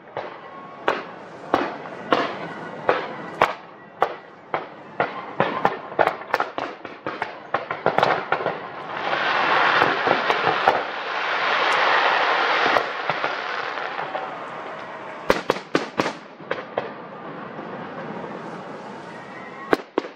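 Aerial fireworks going off in quick succession, with sharp bangs about two or three a second. In the middle the reports merge into a dense continuous rush for about four seconds. A tight cluster of bangs follows later, and a single one comes near the end.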